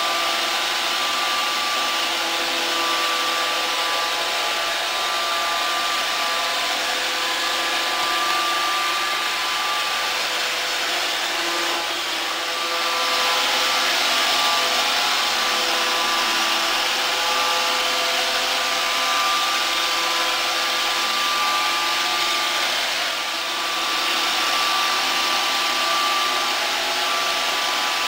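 iRobot Roomba 580 robot vacuum running across a hard parquet floor: a steady whir of its vacuum motor and brushes, with several high whining tones held over a hiss.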